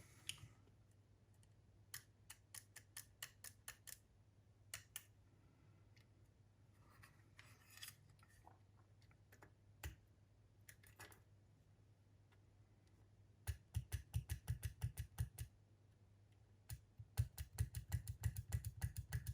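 Small switches on a cassette walkman's circuit board clicking as they are worked back and forth: scattered single clicks, then two fast runs of clicks in the second half.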